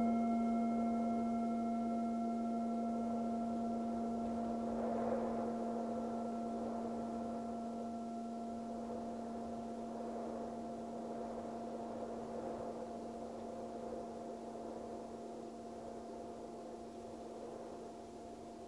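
Singing bowl ringing out after a single strike: a steady low tone with fainter higher overtones, slowly fading. A soft wind sound swells and falls behind it.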